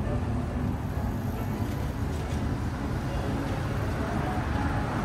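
Steady low rumble of city traffic.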